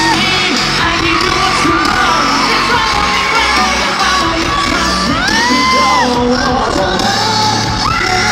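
Live pop concert music played loud in an arena, with a crowd of fans screaming and cheering over it; high shrieks rise and fall throughout.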